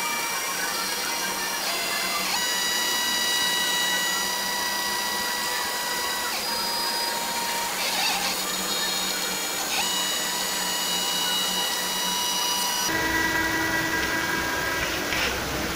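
Stepper motors of an Arduino-driven CNC plotter whining as the axes move, the whine holding a steady pitch and then jumping to a new one every few seconds as the moves change. About thirteen seconds in, a hiss and a low hum come in under the whine.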